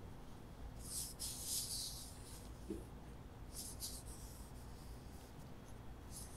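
An ink-loaded East Asian brush sweeping across paper in long strokes, painting orchid leaves: a soft, hissing brush-on-paper sound. The longest stroke runs from about one to two and a half seconds in, with shorter strokes around three and a half seconds and near the end.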